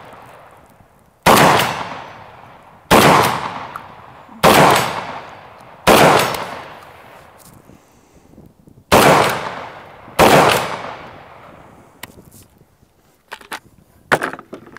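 Fostech Origin 12 gas-operated semi-automatic 12-gauge firing buckshot: six loud shots, mostly about a second and a half apart with a longer pause before the fifth, each trailing off in an echo. A few light handling clicks near the end.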